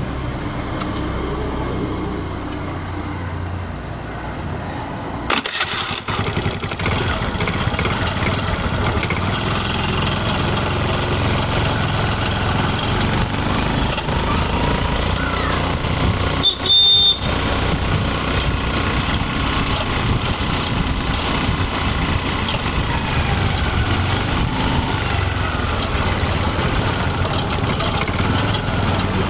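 Honda Activa scooter's single-cylinder four-stroke engine running steadily. The sound changes abruptly about five to six seconds in. About halfway through there is a brief, louder, high-pitched sound.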